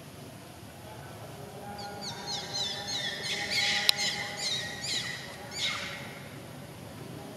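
A baby monkey's run of short, high-pitched squeals, each falling in pitch, repeating several times a second for about four seconds, with one sharp click in the middle.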